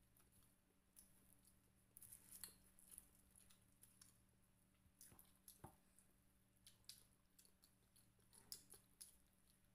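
Faint eating sounds: fried chicken and breaded chicken nuggets being chewed and handled, as scattered soft clicks and small crackles.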